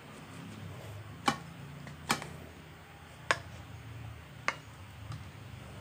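Plastic rice paddle knocking as cooked rice is scooped out of a rice cooker's pot: four sharp clicks, about a second apart, over a faint steady low hum.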